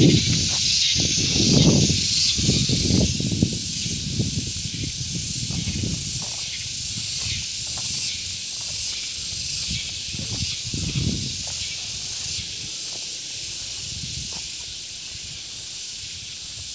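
Outdoor ambience: a steady high hiss with irregular low rumbling gusts that are strongest in the first half and die away toward the end.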